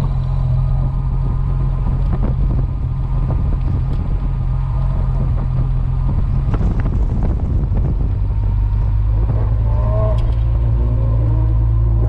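Porsche 914-6's air-cooled flat-six running steadily at low speed, a continuous low drone heard from the open cockpit. The engine note steps down about two-thirds of the way through.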